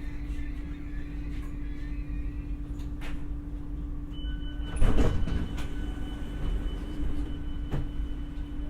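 Sliding passenger doors of an X60 commuter train operating, with a steady electronic door tone that starts about four seconds in and a loud door thud just after. The train's low electrical hum runs underneath.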